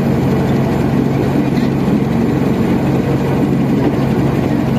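Motorboat engine running steadily, a loud, even low drone with a constant hum.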